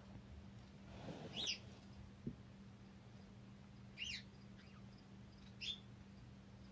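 Black-tailed prairie dog giving short, high squeaky chirps, about four spread over a few seconds, the first the loudest.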